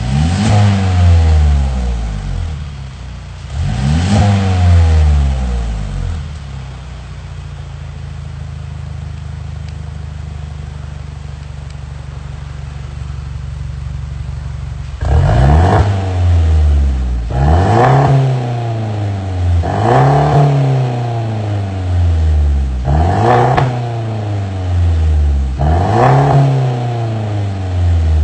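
Mercedes-Benz C300 W205's turbocharged four-cylinder engine through an ARMYTRIX valvetronic exhaust, revved sharply twice, left idling steadily for several seconds, then revved five more times in quick succession, each rev rising and falling back to idle.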